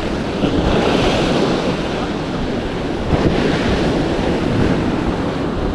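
Sea waves washing and breaking against a rocky shore, with wind buffeting the microphone.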